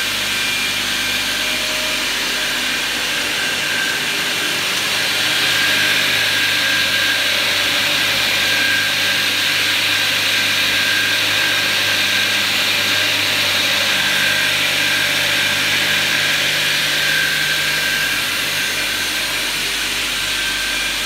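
A Rudolf Kleinhenz six-saw cross-cut saw line running steadily, its electric drives and chain conveyors giving a continuous mechanical hum with a faint high whine. It gets a little louder for most of the middle stretch, with no individual cuts heard.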